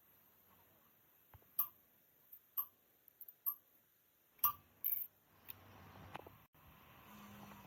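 Sharp metallic clinks and taps, about one a second for several seconds, from tools and parts being handled while a heavy-equipment gearbox is worked on, followed by a faint steady noise in the second half.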